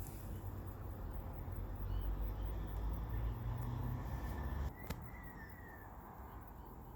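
Suburban outdoor ambience: a low rumble that stops abruptly about two-thirds of the way through, then a single sharp click, with a few faint bird chirps over it.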